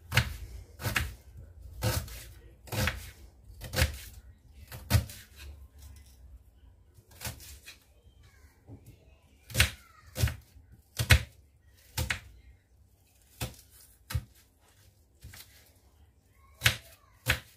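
Kitchen knife chopping an onion on a wooden cutting board: single sharp knocks of the blade on the board, about one a second at first, then more spaced and uneven.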